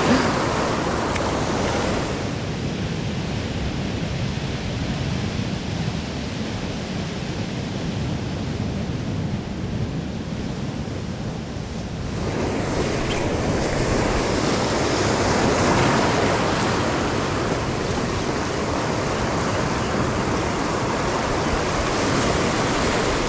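Ocean surf breaking and washing over rocks and pebbles at the shoreline, a steady rushing that grows louder and brighter about halfway through.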